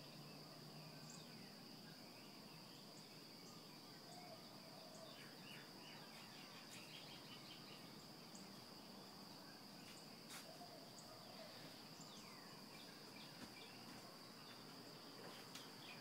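Faint dawn birdsong: scattered short chirps from several birds and a quick repeated trill a few seconds in, over a steady high-pitched drone like insects.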